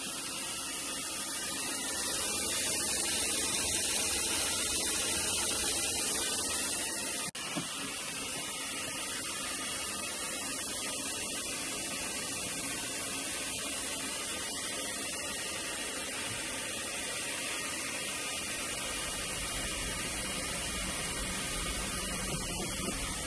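Top-load washing machine filling, with a steady hiss of water spraying into the drum.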